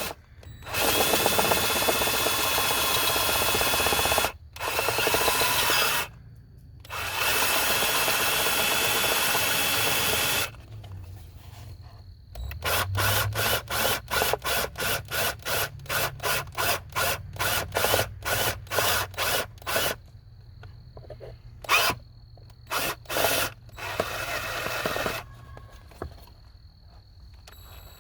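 Small power drill with a unibit step bit boring out the cigarette-lighter socket hole to a larger size. It runs in several stretches of a few seconds each, then in quick short trigger bursts about three a second for several seconds, then a few more short runs near the end.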